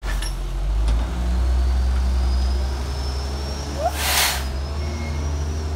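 Crane Carrier LET1 garbage truck's engine running with a steady low drone. About four seconds in comes a short air-brake hiss.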